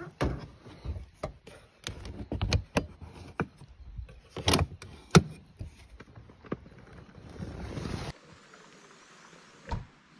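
Hands working the fittings of a hardshell rooftop tent on a car roof: a quick run of clicks, knocks and rustles for about eight seconds, then much quieter, with one more knock near the end.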